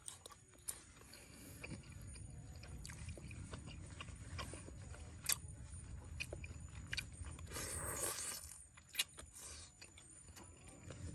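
A person chewing and biting food, with scattered small clicks and smacks over a steady low rumble.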